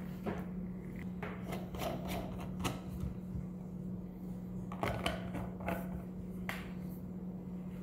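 Scattered clicks, taps and scrapes of a steel vacuum flask being closed by hand: the plastic stopper pushed in and the metal cup-lid screwed on. A steady low hum runs underneath.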